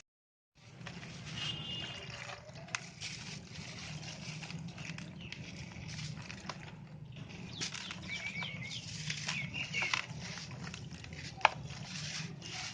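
Lumps of dried red sand-cement being crushed and crumbled, with dense crunching and crackling and a sharp snap near the end.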